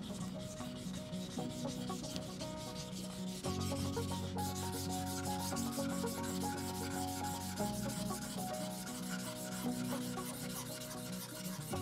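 Steel deba knife blade being stroked back and forth on a wet Naniwa Chosera 400-grit whetstone, a steady run of rhythmic grinding strokes. This is the coarse stage that thins the edge.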